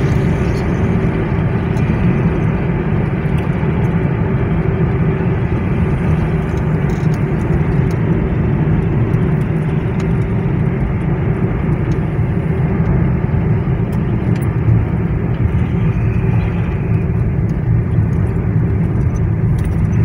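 Steady low rumble of a car driving on a paved road, engine and road noise heard from inside the cabin.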